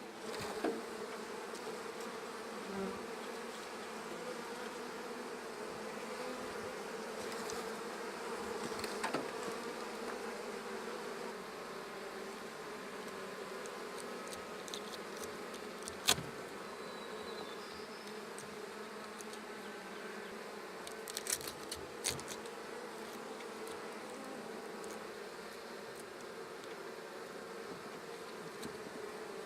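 Honeybees buzzing steadily in a mass over an opened hive, a continuous hum. A few sharp clicks or knocks cut through it, one about halfway and a cluster some seconds later.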